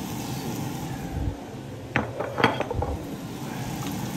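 Onions sizzling in oil in a Finex cast iron skillet, with a spoon knocking and clinking against the pan several times about halfway through as they are stirred.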